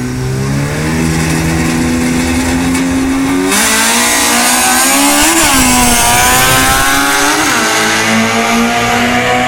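Drag race launch: a Ford Mustang GT's 5.0 Coyote V8 and a built Honda Civic's engine are held at revs on the start line, then go to full throttle about three and a half seconds in. Engine pitch climbs and drops back at each upshift, twice.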